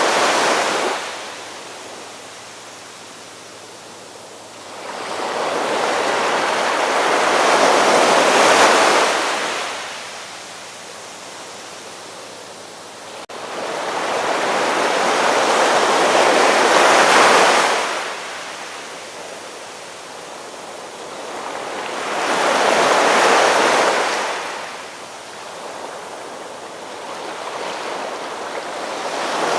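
Ocean surf breaking on a beach: each wave surges up into a loud rushing wash, then falls back to a softer hiss, with a new wave about every six to eight seconds.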